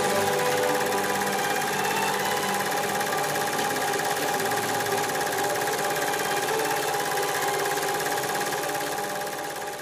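Film projector running, a steady rapid mechanical clatter with a hum, fading out near the end.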